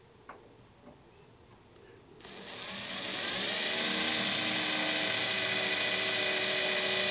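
Cordless drill boring a small pilot hole through the thin sheet-metal side of a pickup bed. The motor starts about two seconds in, winds up in pitch, then runs steadily with a high whine as the bit cuts.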